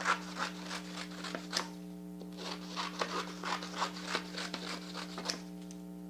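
Scissors snipping brown construction paper into thin strips: a run of quick crisp cuts, about three a second, with a short pause about two seconds in.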